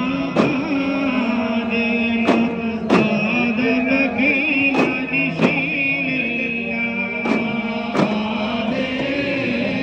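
Music: a chant-like sung melody over held tones, with sharp percussion strikes falling in pairs about every two and a half seconds.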